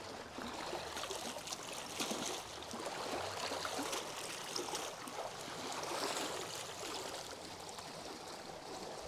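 Small river waves lapping and washing against rocks at the water's edge, a steady wash that swells and fades gently, with a few faint clicks.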